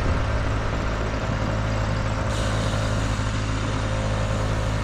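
Motorcycle engine running steadily at a low hum, with wind and road noise, as heard by a rider on the bike.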